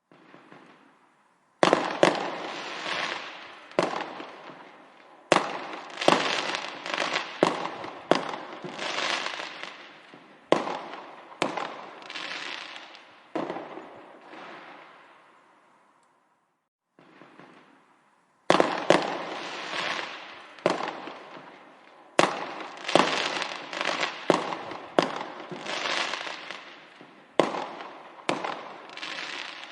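Fireworks going off: a rapid series of sharp bangs, each fading away over a second or so. They come in two volleys, the first starting about two seconds in, with a quiet pause of a few seconds in the middle.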